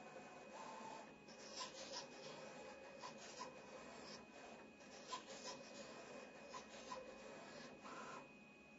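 Roland CAMM-1 GX-24E knife cutter cutting printed label paper: its servo-driven carriage and roller shuttle the blade and sheet back and forth in quick, faint, scratchy strokes with small clicks, stopping shortly before the end.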